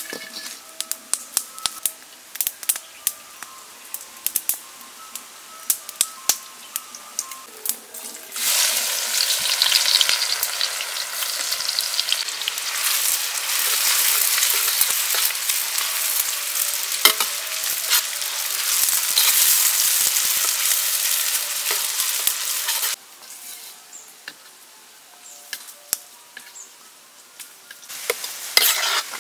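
Sliced red onions deep-frying in hot oil in a wok and stirred with a metal ladle: a loud, steady sizzle that starts suddenly about a third of the way in and drops away suddenly later, then returns briefly near the end. Before and between the sizzling there are scattered sharp pops and crackles.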